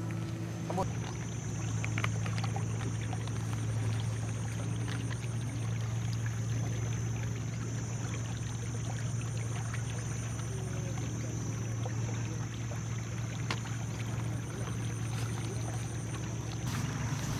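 A steady low engine-like hum, with a faint, steady high-pitched whine above it and a few soft clicks.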